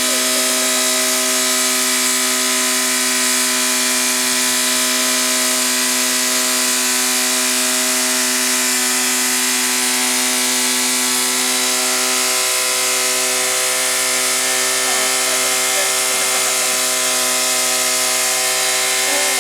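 Toyota car engine running without a radiator, held at one steady high-pitched note throughout; it is overheating on its way to failure.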